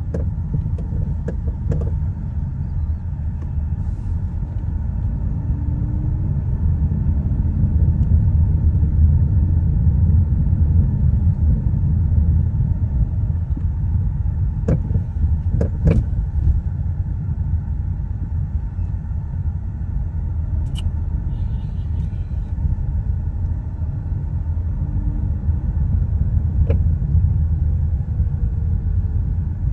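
Car driving, with a steady low rumble of road and running noise. A few sharp knocks come through at irregular moments, the loudest about 15 to 16 seconds in: a suspension knock of unknown cause.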